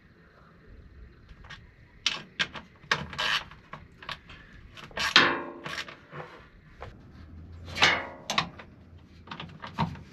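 Quarter-inch-drive Icon ratchet clicking in short runs of strokes as 8mm bolts on a diesel fuel filter housing cover are run down snug, with light scraping of the socket and tool.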